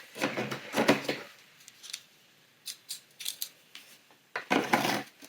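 Handling of a toy advent calendar's cardboard compartment and the small toy road signs from it: rustling and scraping at the start, a few light clicks, then another burst of rustling near the end.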